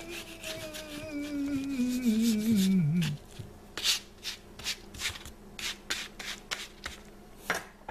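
A man's long, drawn-out moan that slides down in pitch and stops about three seconds in. Then a table knife cuts through an omelette and scrapes on the plate in a series of short, uneven strokes.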